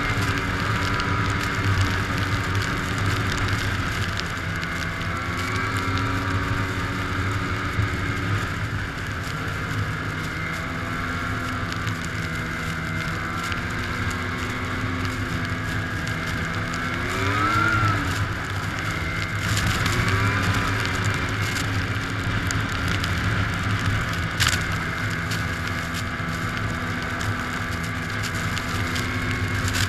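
2006 Arctic Cat Sabercat 700 snowmobile's two-stroke twin engine running under way, heard from the rider's seat, its pitch rising and falling with the throttle, with a sharp rev and let-off a little past the middle.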